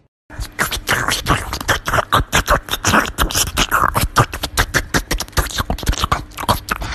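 Rapid, irregular crunching and smacking clicks of a small animal biting and chewing at a crispy whole roast duck.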